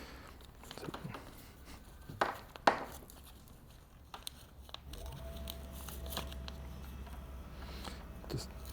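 Handling sounds of a nylon strap and its buckle being fitted: a few sharp clicks and rustles in the first three seconds, then a faint steady hum.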